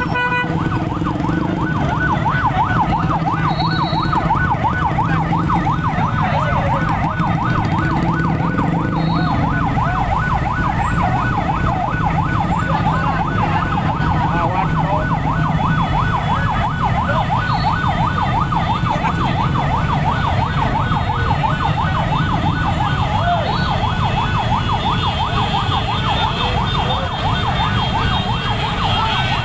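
A siren sounding a fast up-and-down warble, over the steady rumble of vehicle engines.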